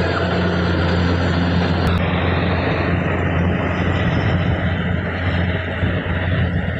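Kubota DC104 combine harvester running steadily under load, its diesel engine giving a constant low hum over the dense mechanical noise of the machine, with a brief click about two seconds in.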